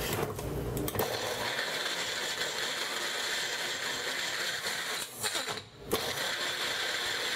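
Personal blender motor running steadily, blending a thick pancake batter. It cuts out briefly a little over five seconds in, then runs again.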